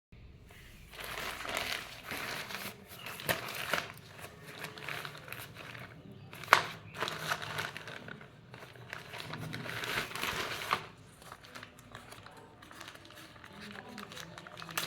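Parcel packaging crinkling and rustling as it is handled and opened, with scattered clicks and a sharp snap about six and a half seconds in.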